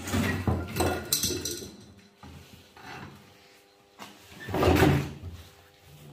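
Scraping and rustling of parts being handled at the vehicle's stripped dashboard, in irregular bursts, with the loudest scrape about four and a half seconds in.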